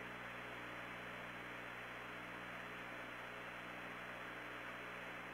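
Faint, steady hiss with a low hum on the Apollo 16 air-to-ground radio recording, in a gap between transmissions.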